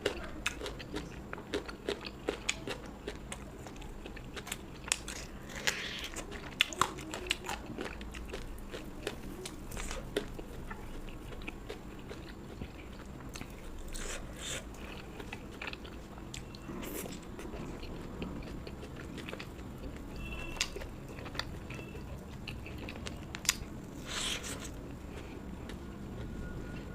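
Close-miked eating: crunchy bites and chewing, with many sharp crackling crunches in the first several seconds and quieter, softer chewing after that.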